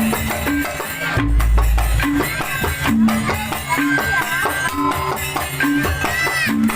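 Janger ensemble music playing the opening piece through a sound system: melodic instruments and drums over a steady, repeating deep beat.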